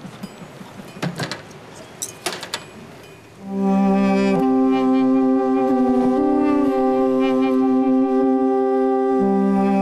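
A few light clicks and clinks of small glass jars being handled. About three and a half seconds in, music begins: a reed wind instrument plays slow, long held notes, much louder than the clinks.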